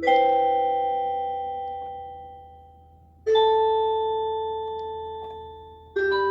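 Slow electronic keyboard music with bell-like chords struck about every three seconds, three in all. Each chord is left to ring and fade away before the next.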